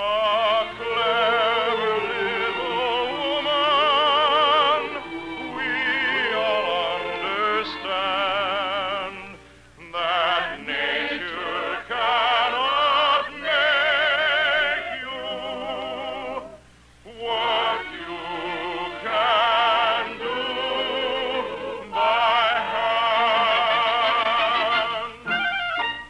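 Operetta singing over an orchestra, the voice held in long notes with wide vibrato, broken by two short pauses between phrases, from a 1951 radio broadcast recording.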